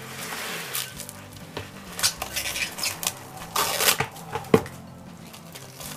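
Kitchen handling sounds: a heat-resistant dish being moved and set down with clinks and knocks, and plastic wrap rustling as a second sheet is laid over it before microwaving. There are a few sharp knocks, the loudest a little past the middle.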